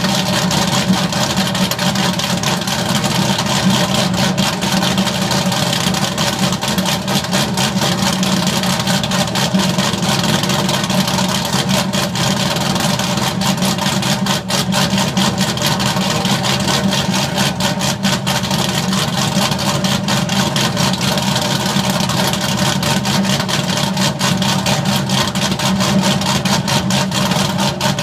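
Straight-piped Pontiac GTO V8 exhaust idling steadily with a deep, unchanging note, no muffler on the pipes.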